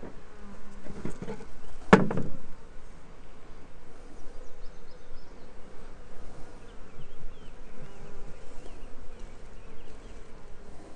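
Honey bees buzzing around a comb-laden hive frame held out of the hive, a steady dense hum. A single sharp knock about two seconds in.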